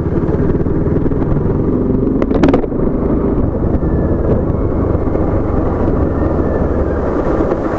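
Motorcycle engine running steadily while riding, heard through a mic inside the rider's helmet, with a short sharper sound about two and a half seconds in.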